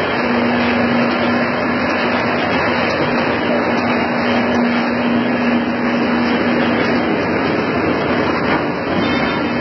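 Corn-chip frying line machinery running: a steady, dense mechanical noise with a low hum that drops out about seven seconds in.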